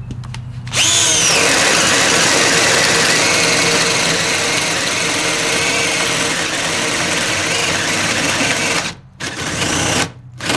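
Bosch GSR12V-140FC 12-volt drill boring through a wooden board with a 1-inch spade bit. The motor spins up with a brief rising whine, then runs under load with a steady grinding cut for about eight seconds; near the end it stops and restarts briefly twice.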